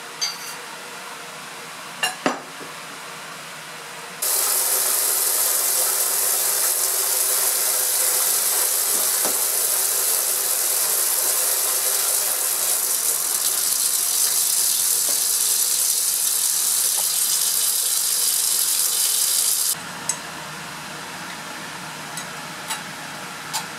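Vacuum filtration rig: a loud, steady hiss as the vacuum draws through a fritted glass filter funnel. It starts abruptly a few seconds in and stops abruptly near the end. Light clinks of glassware come before and after.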